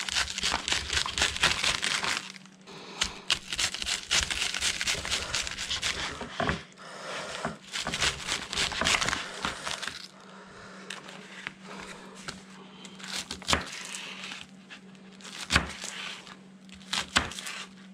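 A chef's knife slicing through a head of red cabbage: crisp crunching, crackling strokes in quick runs, then slower single cuts with sharp clicks over the last several seconds. A faint steady low hum runs underneath.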